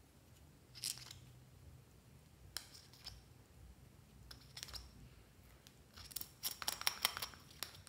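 Metal spatula scraping inside a small plastic pot: a few single scratchy scrapes, then a quick run of scraping clicks near the end.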